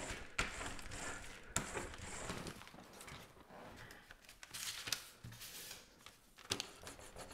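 Faint crinkling and rubbing of a thin clear plastic sheet as a brayer roller is rolled over it and the sheet is then lifted off, with a few light clicks.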